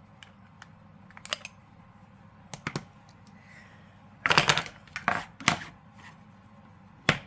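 Clicks and knocks of a small plastic makeup palette being handled: scattered taps early on, a louder cluster of knocks about four to five and a half seconds in, and one sharp click near the end.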